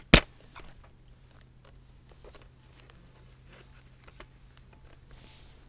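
A DVD case and its discs being handled: one sharp click just after the start, then faint scattered clicks and rustles over a faint low hum.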